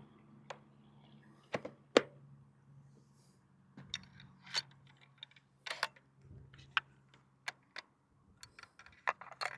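Scattered light clicks and knocks from handling a rifle and shooting gear while settling in for a shot, with the sharpest knock about two seconds in.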